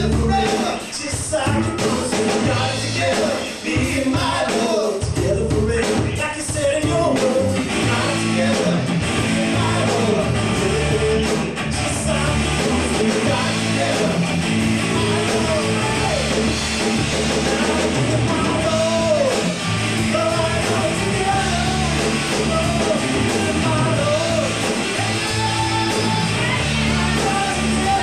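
A live rock band playing a song: electric guitar, bass guitar and a drum kit, with a steady driving beat.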